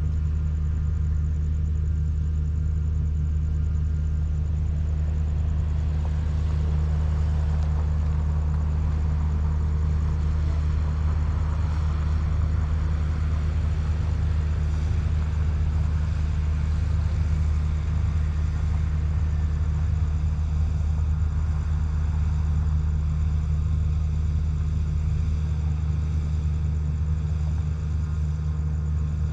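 Diesel train engine running at a steady low drone, with a faint hiss of wind and rolling noise above it.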